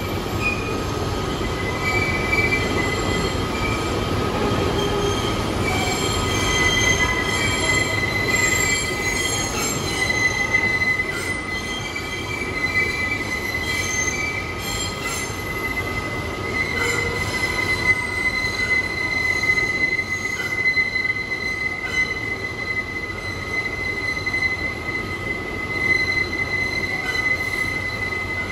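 R142A subway train rolling slowly alongside the platform, its steel wheels giving a steady high-pitched squeal over the rumble of the cars.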